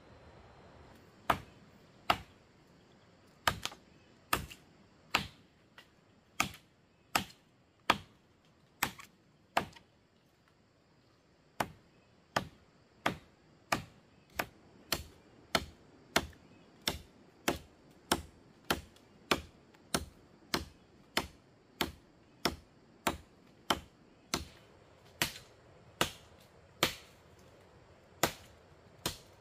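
Sharp, evenly spaced strokes of a tool on bamboo, a little more than one a second, with a short pause about ten seconds in.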